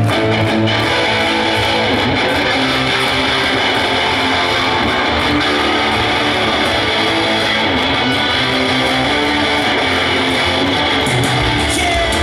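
Live rock band playing loud, led by electric guitars, heard from among the audience.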